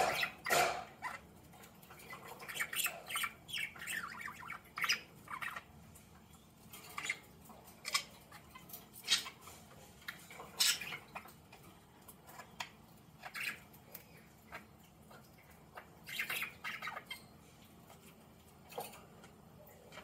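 Pet budgerigars giving short chirps and squawks at irregular intervals, mixed with small crunching sounds as they bite bok choy leaves.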